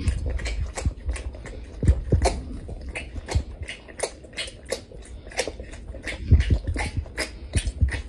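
A tiger sucking milk from a bottle: a string of short wet sucking and smacking clicks, about three or four a second, some with a low thump.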